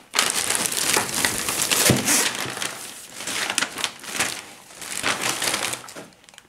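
Plastic bag and paper mailer crinkling and rustling in irregular surges as a replacement dishwasher hose is pulled out of its packaging, dying away near the end.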